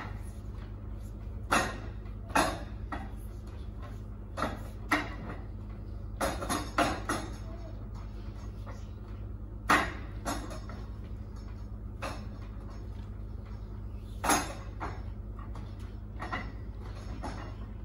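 Hands and forearms striking the arms of a Wing Chun wooden dummy (mook yan jong): irregular sharp wooden knocks, some single and some in quick clusters of two or three, over a low steady hum.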